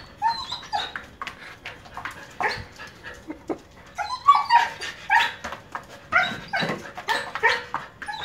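Siberian husky barking and yelping in a rapid string of short, high-pitched calls with brief gaps between them. The calls come from a dog agitated at a cat eating from its food.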